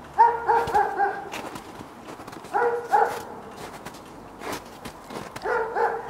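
A dog barking in three short bouts of two to four quick barks: one at the start, one about two and a half seconds in and one near the end.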